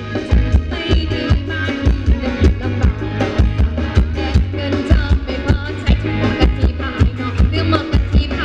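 Live band playing Thai ramwong dance music with a steady drum beat and a strong bass line.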